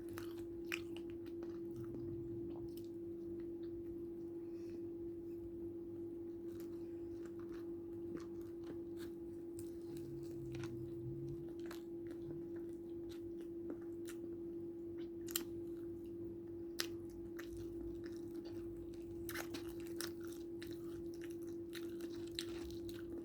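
A person chewing and biting into crispy fried chicken, with scattered short crunches and mouth clicks. A steady hum with a single pitch runs underneath.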